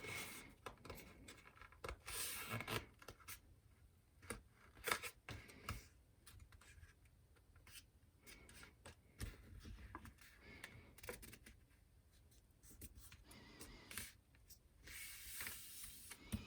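A sheet of paper being folded and creased by hand: faint crinkling and rustling, with a few short, sharper crackles.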